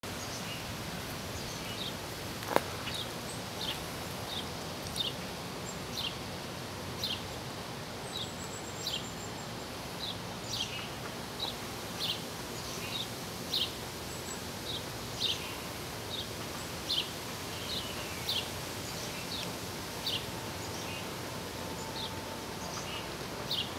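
A bird giving short, high, falling chirps over and over, roughly one a second, over a steady background hiss. A single sharp click about two and a half seconds in is the loudest sound.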